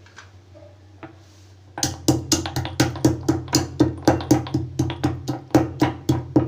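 Cinnamon sticks being pounded in a small mortar with a pestle. Starting about two seconds in, there is a rapid, even run of sharp strikes, about four a second, each ringing briefly, over a faint steady hum.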